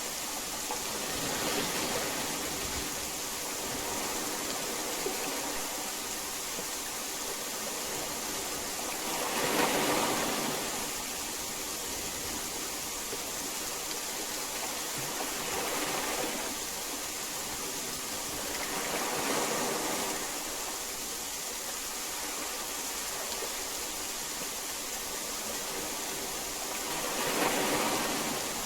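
Heavy rain falling steadily, its hiss swelling and easing in waves every few seconds, loudest about ten seconds in and again near the end.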